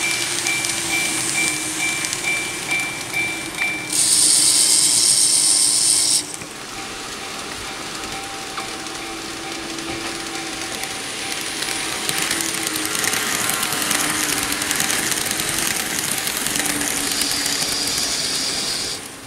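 N-gauge model train (KATO 115 series) running on the layout's track, a steady rumble of motor and wheels on rail. For the first few seconds a model level crossing's warning bell dings about three times a second. Around 4 s a loud hiss lasts about two seconds and cuts off suddenly.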